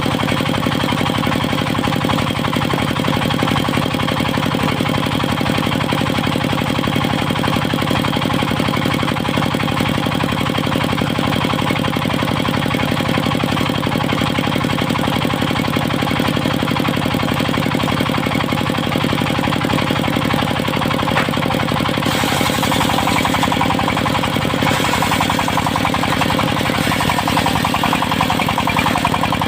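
Diesel engine of a circular sawmill running steadily. About 22 seconds in, a higher hiss rises over it, and the engine note shifts a few seconds later.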